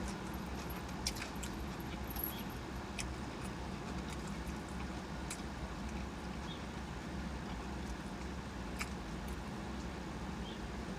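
Someone chewing food with faint, scattered smacking mouth clicks, over a steady low hum inside a car.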